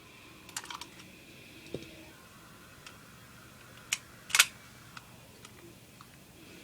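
A few sharp mechanical clicks from an airsoft 1911-style gas blowback pistol being handled. The two loudest come close together about four seconds in.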